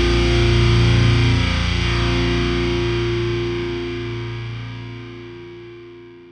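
Rock song ending on a held, distorted electric-guitar chord that rings out and slowly fades away.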